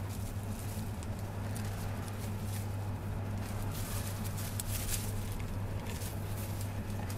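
Thin disposable plastic gloves crinkling and a small sachet rustling in the hands, with scattered light clicks and taps, over a steady low electrical hum.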